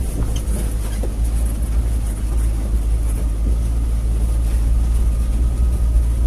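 Songthaew pickup truck driving along a muddy dirt road, a steady low engine and road rumble heard from aboard the vehicle.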